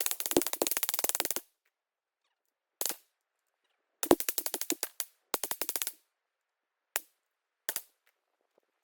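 Ruger 10/22 semi-automatic .22 LR rifle firing fast strings of shots: a long rapid string at the start, a single shot, then two more quick strings about four and five seconds in, and two single shots near the end.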